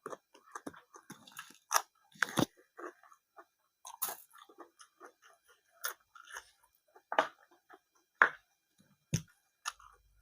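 A person chewing close to the microphone, with irregular wet mouth sounds and several louder crunches from biting into crisp raw vegetables.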